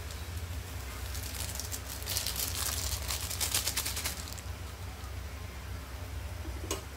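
Chicken adobo simmering in a pan, its sauce bubbling with a steady crackle over a low hum. From about two seconds in until just after four seconds, a louder, dense crackling rustle as a small plastic seasoning sachet is shaken out over the pan.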